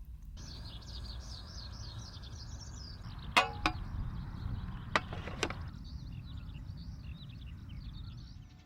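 Eurasian skylark singing a continuous, rapid high warble over a low wind rumble. A few sharp clicks come in the middle.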